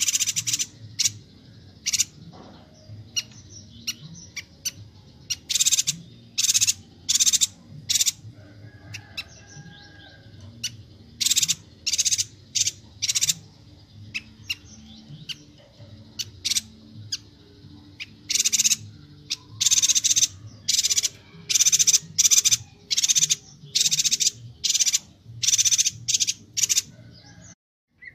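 Chestnut-crested yuhina calling: short, sharp, high calls repeated in quick runs of several a second, over a faint low hum. The recording cuts out briefly near the end.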